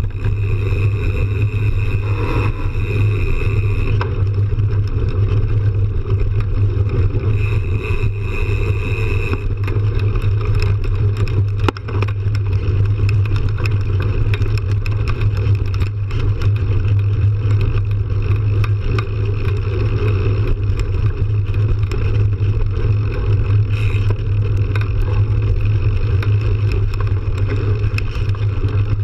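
Mountain bike rolling over a dirt trail, heard from a camera mounted on the bike: a steady low rumble of wind buffeting and knobby-tyre noise. A high buzzing tone comes in twice for a couple of seconds each, early on and again about seven seconds in.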